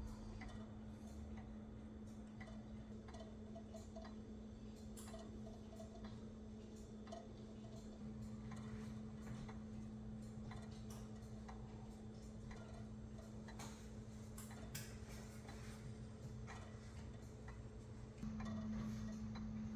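Antique V. Jospischl Vienna 30-day two-weight grandfather clock ticking steadily as its pendulum swings, over a steady low hum that gets louder near the end.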